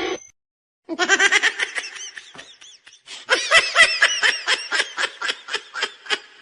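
A person laughing hard in quick, rhythmic pulses: two long bouts of laughter with a short break between them.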